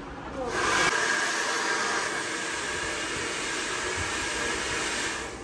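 Handheld hair dryer blowing on hair: a steady rushing blow with a faint whine in it, starting about half a second in.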